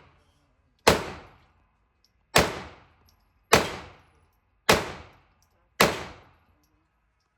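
Semi-automatic pistol fired five times in slow succession, about a second or so between shots, each shot sharp with a short echoing tail.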